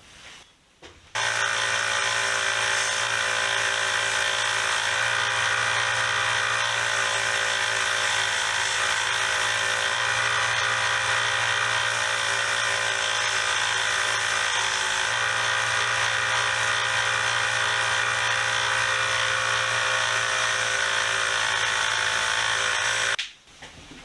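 A 1x30 belt sander running steadily while sanding the steel adjustable wrench to flatten its face and smooth off forge marks. It starts about a second in and cuts off shortly before the end.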